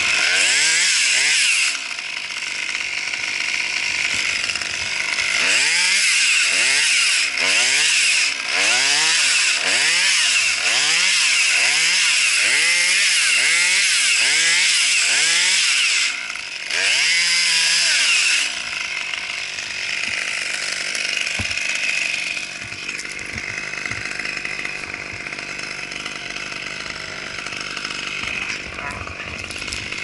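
Husqvarna T540 XP top-handle two-stroke chainsaw, revved up and down in quick pulses about once a second, with one short steady burst at full throttle. It then settles to a lower, steady idle for the last third.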